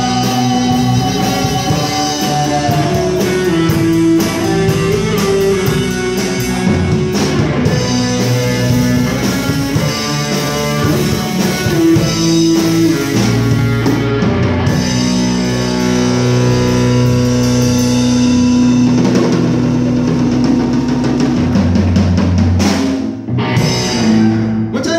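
Live rock band playing a rock ballad: electric guitar and drum kit with cymbals, loud and steady.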